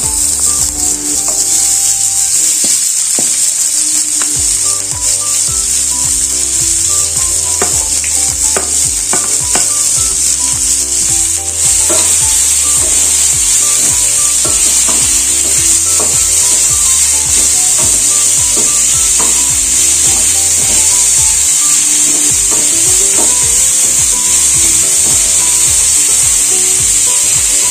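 Sliced onions sizzling in hot oil in a nonstick frying pan: a loud, steady hiss that grows a little louder about twelve seconds in. A wooden spatula scrapes and knocks against the pan now and then as the onions are stirred.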